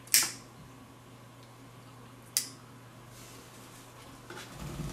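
Two sharp clicks about two seconds apart from the trigger of a long utility lighter, then soft knocking and rubbing near the end as a tealight is moved on a wooden board.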